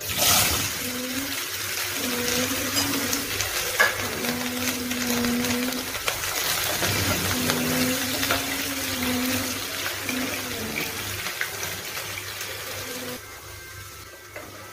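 Vegetable pieces sizzling loudly in hot oil in a non-stick kadai as a steel spatula stirs them. The sizzle starts suddenly, with a sharp knock about four seconds in, and falls off near the end.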